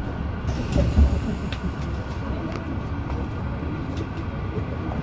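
Inside an MI09 RER A train car in motion: a steady low rumble of the train running, with a few sharp clicks along the way.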